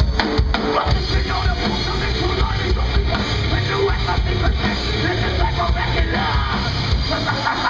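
A live nu metal band playing loud, with electric guitars and a drum kit. The full band comes in at once right at the start.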